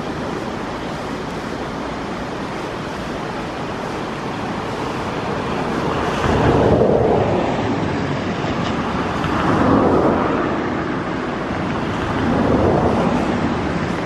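Surf: a steady rush of breaking waves that swells three times in the second half as waves roll in, with wind buffeting the microphone.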